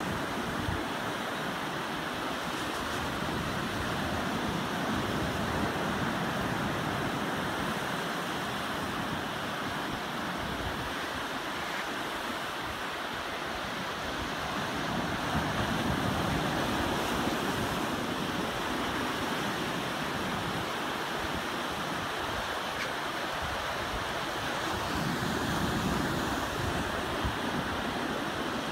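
Surf washing up a sandy beach: a steady rush of water that swells about every ten seconds as each wave comes in.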